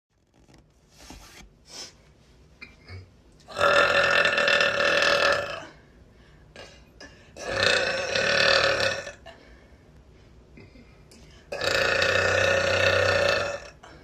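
A young woman burping loudly three times, each burp drawn out for about two seconds, the first coming about three and a half seconds in.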